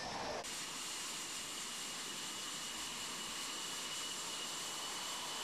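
Jet aircraft engine running steadily: an even rush of noise with a steady high whine. The sound changes abruptly just under half a second in, then holds even.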